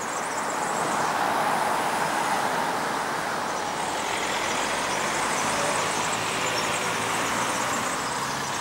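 Steady distant rumble of an approaching double-headed steam train, swelling and easing, with faint insect chirping high above it.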